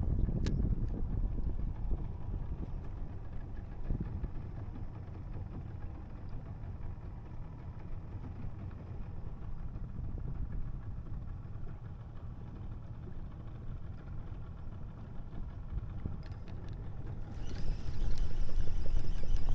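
Fishing boat's engine running steadily underway, with a low rumble. Near the end a louder rushing sound of wind and water comes in.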